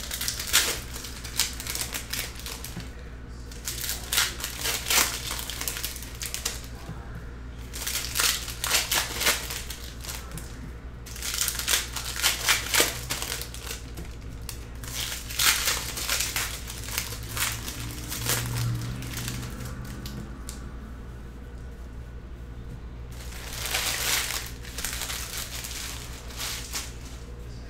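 Foil trading-card pack wrappers crinkling and tearing as packs are opened, in repeated bursts of a second or two with short pauses between them.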